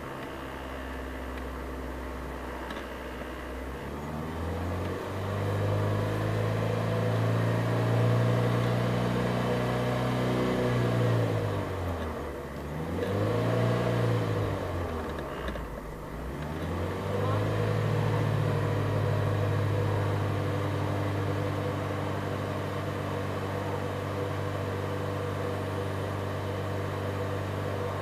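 Car engine revved by a foot on the accelerator, heard from inside the car. It idles, rises a few seconds in to a held rev, drops back and is blipped once more, then is held at a steady raised speed for the last ten seconds.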